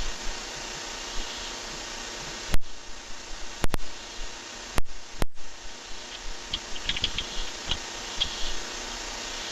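Knocks and short high clicks inside a barn owl nest box over a steady hiss from the camera microphone. Several sharp knocks come from about two and a half to five seconds in, then a quick run of faint high clicks.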